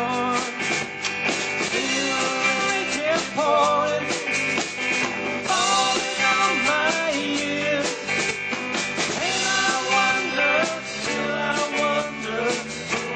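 Rock-and-roll band playing: guitars and a drum kit, with a lead melody that slides up and down in pitch.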